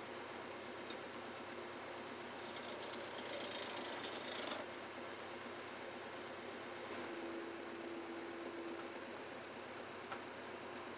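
Steady engine running, powering a Kesla 203T timber crane. A louder hissing, rattling stretch comes about two seconds in and stops suddenly at around four and a half seconds, and a steady hum strengthens near the end.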